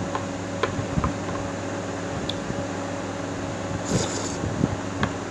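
Eating chicken rice porridge with a metal spoon: a few light clicks of the spoon in the bowl, then a short slurp from the spoon about four seconds in, over a steady background hum.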